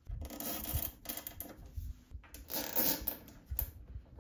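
Nylon cable ties being fitted and pulled through their locks around a wire harness, with hands rubbing the wires against a sheet-metal frame, in several short scratchy bursts with pauses between.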